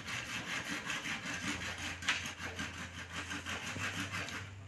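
A small engine running steadily in the background, with a fast, even chug of about six beats a second over a low hum.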